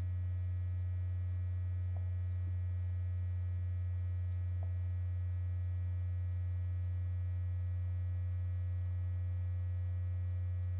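Steady low electrical hum, with a couple of faint ticks about two seconds and about five seconds in.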